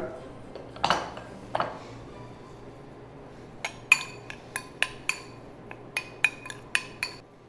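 Metal spoon clinking and scraping against a small glass bowl while mixing chopped raw beef tartare. A couple of clinks come about a second in, then a quick run of clinks, about four a second, in the second half.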